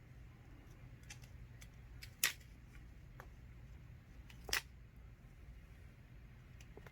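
Two short scrapes about two seconds apart, with a few faint clicks between: old char being cleaned off the tip of a wooden hand-drill spindle.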